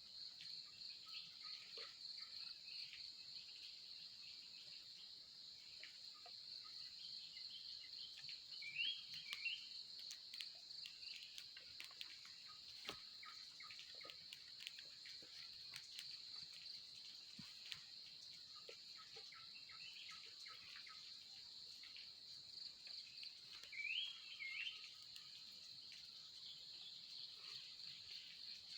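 Faint steady insect chorus, a continuous high pulsing trill. A bird gives a short chirping call twice, about nine seconds in and again near twenty-four seconds.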